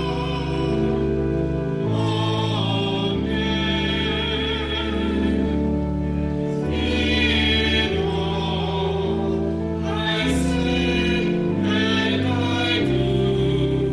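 A small church choir sings a hymn with organ accompaniment. The organ holds sustained chords that change every second or two, and the voices sing with a wavering vibrato.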